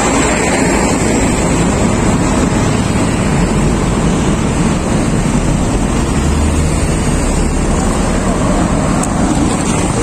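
Wind buffeting the microphone over steady street traffic, with a Volkswagen concrete mixer truck passing close by at the start.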